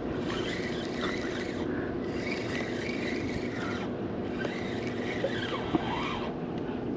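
Steady mechanical hum with several held tones, with faint brief squeaks and scrapes over it, from the fishing kayak's gear while a fish is being brought in.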